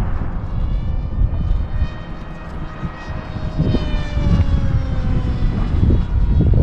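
Electric motor and pusher propeller of an RC flying wing whining in flight, the pitch sliding down through the middle, with wind buffeting the microphone.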